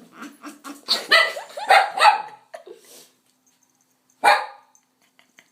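Pet dog making short, odd bark-like calls: a cluster of them in the first two seconds, then one sharp call about four seconds in. The owner wonders whether these are a sign that the dog is sick.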